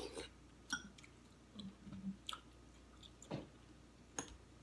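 Quiet chewing and mouth sounds of people eating chicken soup, with a few short, sharp clicks of metal spoons against ceramic bowls scattered through.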